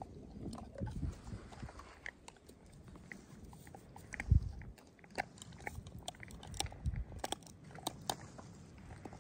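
German Shepherd dogs gnawing and crunching on bones, a scatter of short sharp crunches and clicks, with one dull thump a little past four seconds in.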